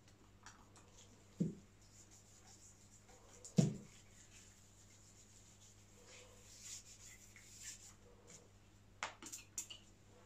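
Quiet handling noises from oiling a shotgun: faint rubbing, two soft knocks about a second and a half and three and a half seconds in, the second one louder, and a few light clicks near the end.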